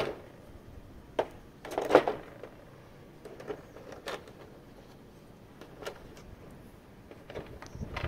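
Hands handling the figure and its plastic packaging: a sharp click at the start, a brief louder rustle about two seconds in, and scattered lighter clicks after that.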